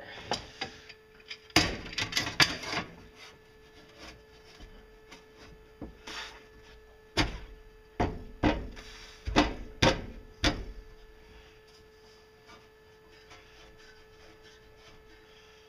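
Steel bar clamp and sheet-metal tube knocking and scraping against each other and the wooden workbench as the clamp is fitted around the tube: a cluster of clanks near the start, then about half a dozen sharp knocks in the middle, with a faint steady hum underneath.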